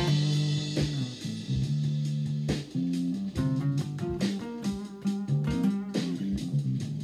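Solo acoustic guitar playing a blues: a chord struck at the start, then picked bass notes and single-note melody runs.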